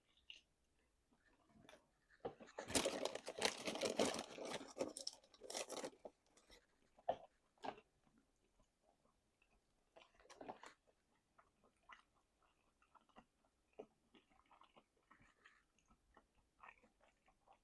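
Crispy chicken wings being bitten and chewed: a loud stretch of crunching from about two to six seconds in, then quieter scattered chewing clicks.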